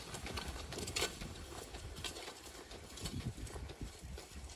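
Duc Plow, a small hand-pulled turning plow, dragged through loose, dry worked soil: uneven scraping and crunching of dirt and clods as the blade throws up a raised bed.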